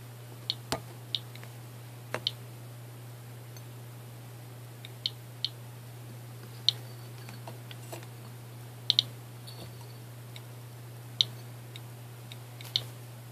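Geiger counter clicking at random, irregular intervals: about a dozen sharp clicks, some in quick pairs, each one a single detected count of radiation. A steady low hum runs underneath.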